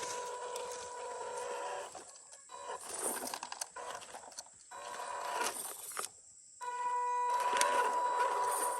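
Electric motor and geartrain of an MN128 1/12-scale RC crawler whining in bursts as the throttle is applied and let off, stopping briefly about two seconds in and again about six seconds in, with scattered clicks.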